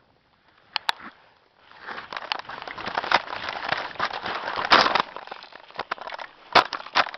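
Crackling and rustling from a player moving through dry ground cover, mixed with sharp clicks and knocks. It starts about a second and a half in, is densest for a few seconds, then thins to scattered clicks.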